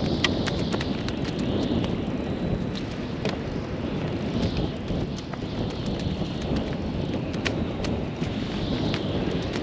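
Wind buffeting the kayak-mounted microphone, giving an uneven low rumble, with scattered small ticks and splashes from water against the kayak hull.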